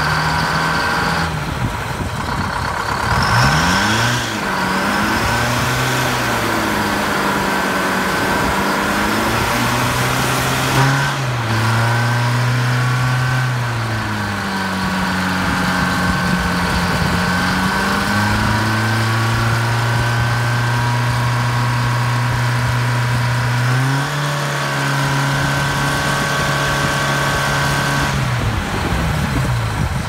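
Clark Michigan 75A wheel loader's two-stroke Detroit Diesel engine running, its revs rising and falling several times between spells of steady running, and dropping away near the end.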